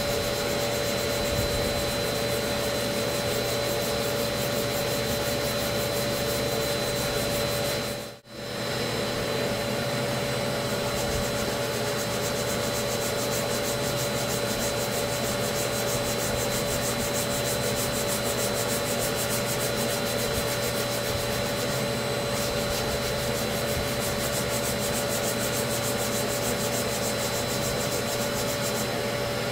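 Body filler hand-sanded with a foam sanding sponge and folded sandpaper, a scratchy rubbing sound, over a steady machine hum. The sound drops out briefly about eight seconds in.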